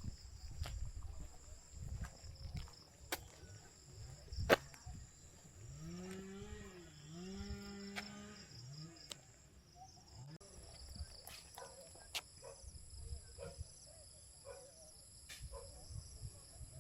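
Insects shrilling in steady high tones, with a low animal call, like a cow's moo, rising and falling twice about six seconds in. Scattered sharp clicks and a low rumble sit underneath, the loudest click about four and a half seconds in.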